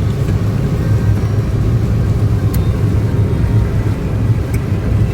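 Steady low rumble of a moving car, with a couple of faint clicks.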